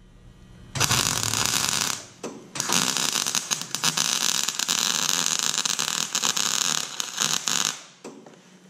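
Wire-feed welder arc crackling as a loose steel piece is welded down to a trailer frame: a short burst about a second in, then a longer run of about five seconds that stops near the end.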